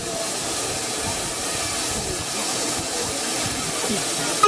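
Steady hiss of steam escaping from a standing saddle-tank steam locomotive, with a single sharp click near the end.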